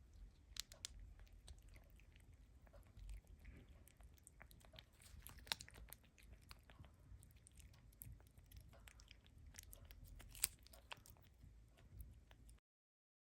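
Faint chewing and crunching, with many scattered sharp clicks. It cuts off abruptly near the end.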